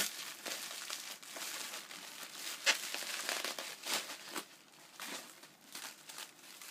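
Bubble wrap being pulled off a packed item by hand, crinkling and rustling unevenly with short sharp crackles.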